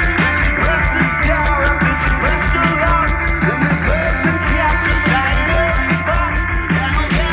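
Rock band playing loud and without a break: drums, bass and electric guitar, with a male voice singing over them.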